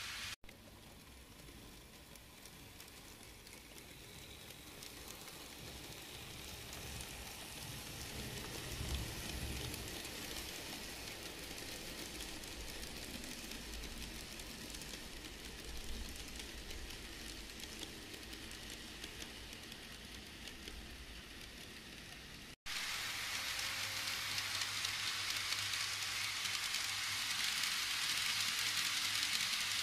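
N gauge model freight train running along the track: a steady rushing hiss of small wheels on the rails, louder as the cars pass close by. It drops out briefly twice.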